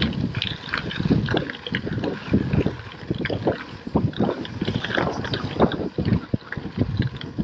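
Wind buffeting the action camera's microphone while riding a gravel bike at speed, with the crackle and ticking of the tyres rolling over loose gravel.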